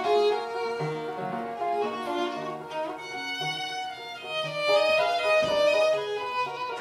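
Violin music: a bowed melody of held, changing notes over lower accompanying notes.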